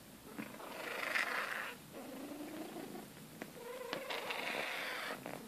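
Exotic Persian cat purring and making noises while its back is scratched: breathy bursts in the first couple of seconds, a low rising moan a little after that, and more purring sound near the end.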